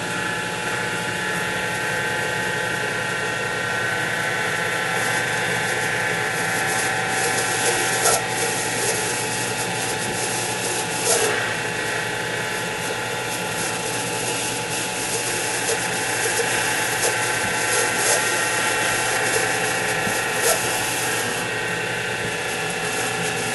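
X2 mini mill running steadily at about 800–900 RPM while a drill bit bores into aluminium, a constant motor and gear whine with a few brief sharp ticks from the cut.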